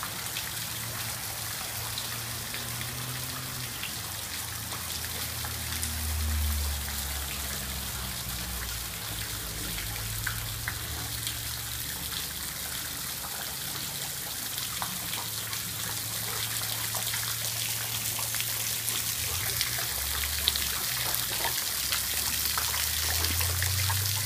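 Steady rain with water spilling from an overflowing rain gutter, pattering and splashing in many small drops onto a puddle and wet ground.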